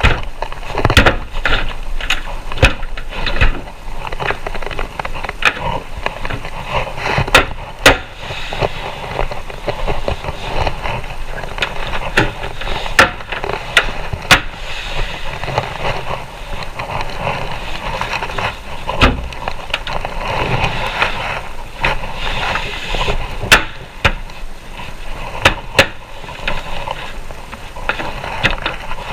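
Cabinet panels being handled and fitted together by hand: irregular sharp knocks and clicks of wood-based panels striking and seating into their grooves, with scraping and rustling between.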